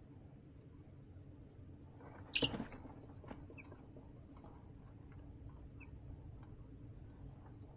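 Baby chicks in a plastic tote brooder scratching and pecking on the floor liner, making small scattered clicks, with one brief loud scrabble about two and a half seconds in. Two faint short peeps come a little later.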